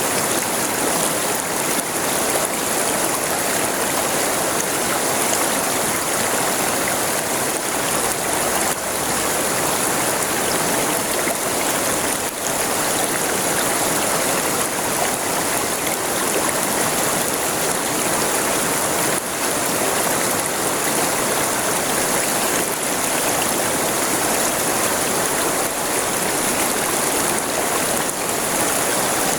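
River water flowing over rocks: a steady, full rushing and splashing.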